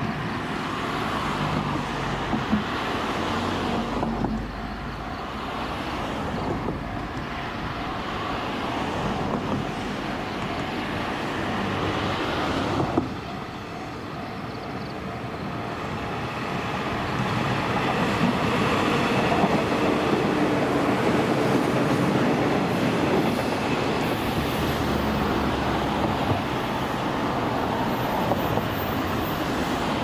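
Train running along the rails, growing louder about halfway through as it comes closer, then holding steady.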